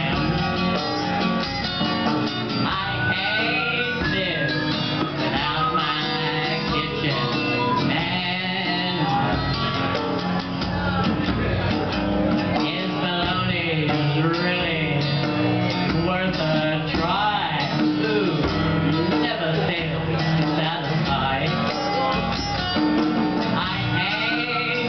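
Live acoustic jazz-blues band: strummed acoustic guitar and a hand drum keeping the beat under a woman singing into a microphone.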